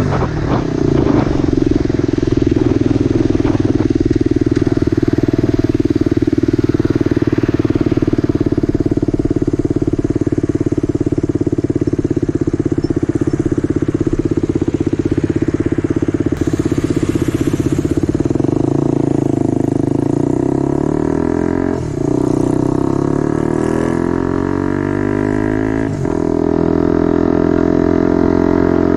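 Motorcycle engine running through a temporary exhaust on a ride, a steady loud drone that holds one engine note for most of the time. The note shifts twice near the end.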